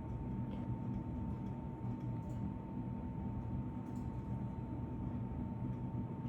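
Steady low hum with a thin, constant high tone, and a few faint soft clicks.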